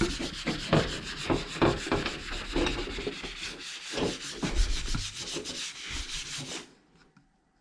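Hand scrubbing of the plastic of an old HP Vectra PC case, wiping sprayed cleaner off with quick, irregular rubbing strokes. The scrubbing stops near the end.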